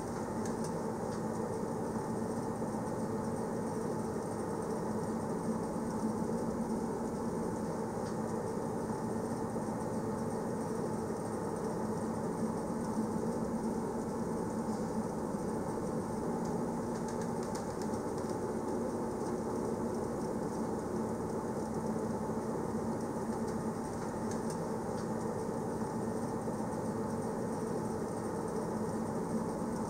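Passenger train running at a steady speed: an even rumble with a steady hum.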